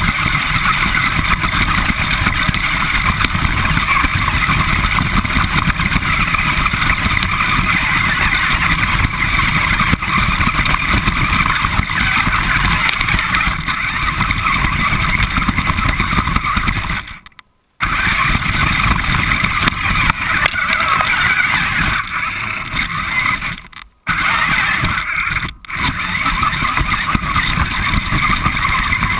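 RC car driving, heard from a GoPro mounted on it: a steady running noise from the motor and drivetrain, with the tyres rumbling over the ground. It cuts out briefly three times, about two-thirds of the way through and twice near the end.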